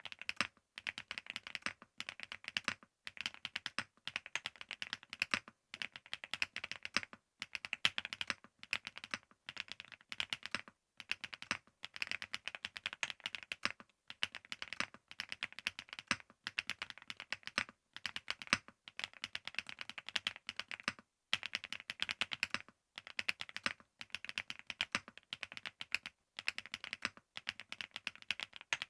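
Typing on a Rainy75 aluminium-cased mechanical keyboard: quick, steady runs of keystrokes broken by short pauses every second or two.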